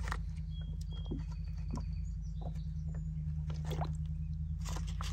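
Small sips and clicks from a plastic drink container while someone drinks a sports drink, over a steady low hum, with a few faint thin high bird notes in the first two seconds or so.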